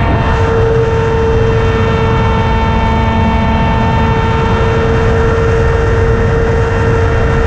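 A small drone's electric motors and propellers whining at a steady pitch, heard from the drone's own onboard camera, with wind rumbling on the microphone.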